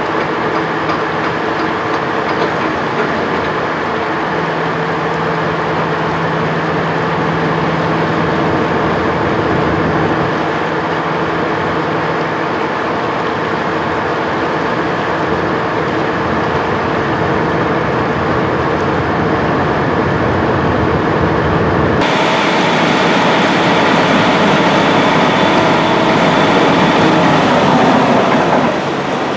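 Ferry engine running steadily, heard loud on deck, with a steady hum of engine tones. About two-thirds of the way in the sound changes abruptly, and near the end the engine note shifts as the ferry nears the landing.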